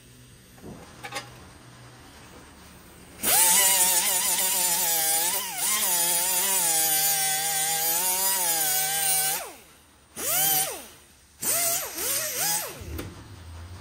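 Pneumatic cut-off tool with a small abrasive wheel cutting a strip of sheet steel. It makes a loud whine for about six seconds, wavering in pitch as the wheel bites into the metal. Then come two short bursts of the tool, each winding down in pitch as the wheel spins down.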